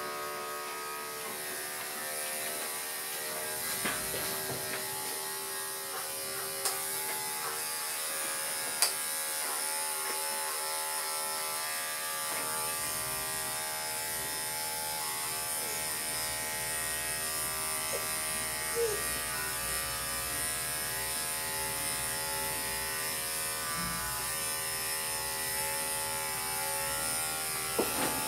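Corded electric dog-grooming clippers running steadily with an even buzz as they shave a dog's coat, with a few faint clicks.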